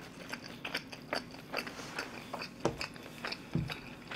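Close-miked chewing: a person eating with many small wet, crunchy clicks, and two louder dull knocks in the second half.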